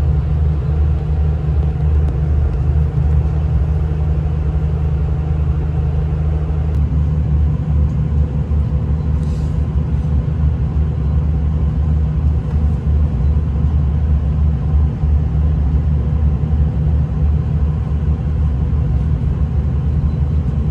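Diesel passenger train heard from inside the carriage: a steady low engine drone and rumble of the running train, with a slight change in its note about a third of the way in.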